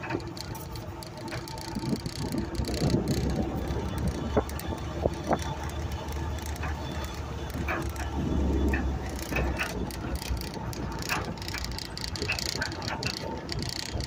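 Vehicle driving over a rough dirt track: a steady low engine rumble with the body rattling and knocking over bumps and stones.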